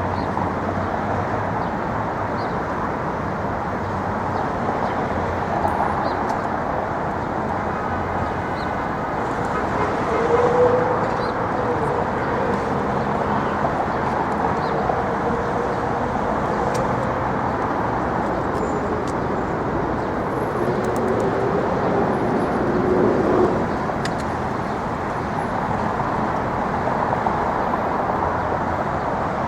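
Steady street traffic noise: cars and other vehicles running past on a busy city road. One passing vehicle's engine grows louder briefly about ten seconds in, and another does so around twenty-two seconds.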